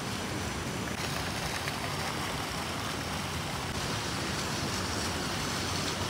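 Steady outdoor noise: a rushing hiss with a low rumble beneath it, shifting slightly in tone about a second in and again near four seconds.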